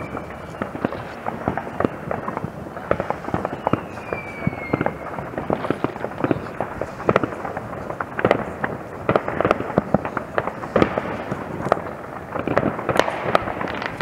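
Many New Year's Eve fireworks going off across a town at once: a dense, irregular crackle of bangs and pops, with a whistling firework falling in pitch about four seconds in.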